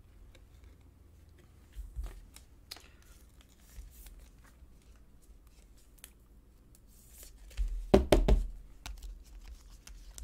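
Hands handling trading cards and clear plastic card sleeves and holders: scattered light clicks and rustles, with a cluster of louder sharp taps about eight seconds in.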